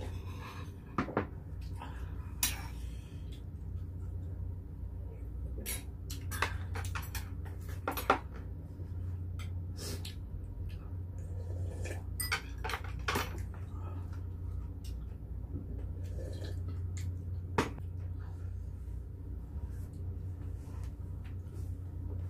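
Spoons and chopsticks clinking against stone pots and dishes as people eat, with heavy pots knocking down onto their trays: scattered clicks and knocks over a steady low hum.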